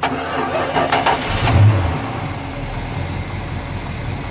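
1971 Plymouth Road Runner's 340 cubic-inch V8 cold-cranked by the starter for about a second, then catching with a short rev and settling into a steady idle.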